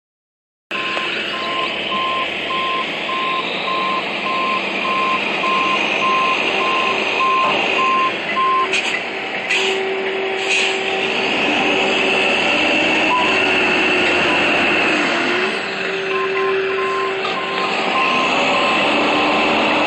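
Heavy truck recovery: a diesel engine running under load with a high turbo whistle, its pitch rising and falling near the middle, while a backup alarm beeps about twice a second through the first nine seconds and again near the end. A few short hisses come around the middle.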